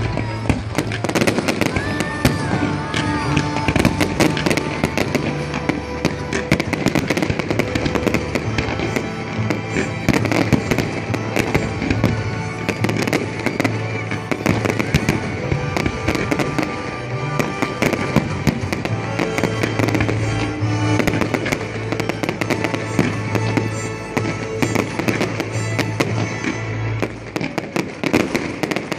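Fireworks display going off continuously: a rapid, dense run of bangs and crackling bursts.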